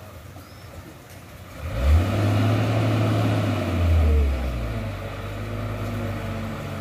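Diesel engine of a heavy, loaded sugarcane truck revving up sharply about two seconds in as it pulls forward under load. It stays loud for a couple of seconds, then eases back to a steadier, lower running note.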